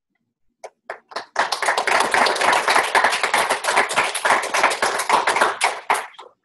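Hands clapping: a few separate claps, then a run of quick, dense clapping for about five seconds that cuts off suddenly near the end.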